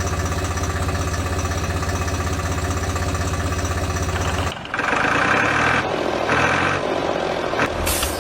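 Tractor engine idling steadily. About four and a half seconds in it cuts off abruptly, giving way to a different, louder sound with two short higher-pitched bursts.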